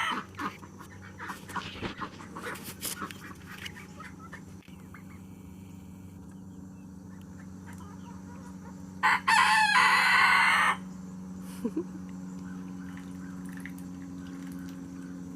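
A rooster crows once, loud and drawn out for under two seconds, about nine seconds in. Before it, hens cluck softly.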